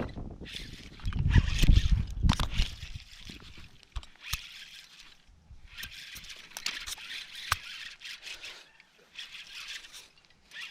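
Water sloshing and splashing, with a heavy low rumble of wind on the microphone for a couple of seconds about a second in, and a few sharp knocks.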